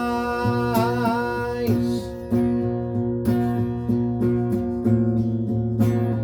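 Acoustic guitar strumming steady chords, with a held sung note over it in the first second and a half.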